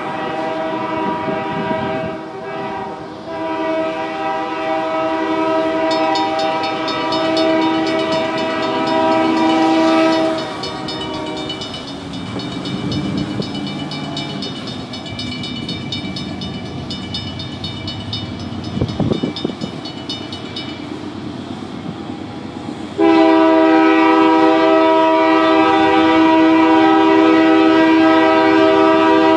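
Union Pacific diesel freight locomotives sounding their multi-chime air horn for a grade crossing: several blasts at the start, with two brief gaps, then a second long blast from near the end. Between the blasts a level-crossing bell rings rapidly over the rumble of the passing locomotives.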